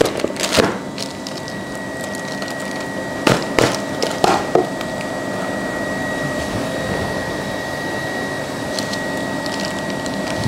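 A steady mechanical whir with a faint high whine throughout. An aluminium baking tin knocks and scrapes against the counter a few times between about three and four and a half seconds in as it is turned over and handled.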